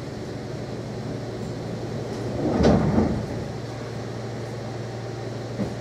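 Steady low hum inside a Class 230 D-Train carriage at rest. About two and a half seconds in, a door slides and shuts with a thud.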